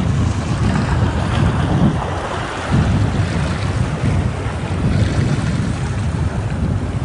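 Ocean waves washing against rocks in a continuous rush, with low wind rumble on the microphone. The surge eases briefly about two seconds in.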